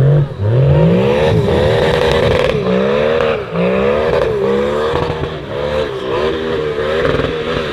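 Off-road 4x4's engine revving hard in repeated surges, the pitch climbing and dropping back about once a second, with some knocking and clatter mixed in.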